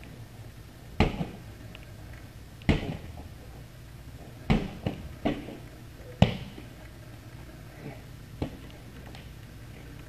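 A medicine ball thudding as it is thrown and caught back and forth: four sharp thuds about every second and three-quarters, with a few lighter knocks in between and one more near the end.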